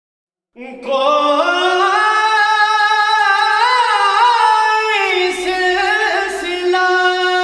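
Naat, an Urdu devotional poem, sung with no instruments. About half a second in, one voice comes in and holds a long vowel that climbs at first, then stays level with small ornamental turns.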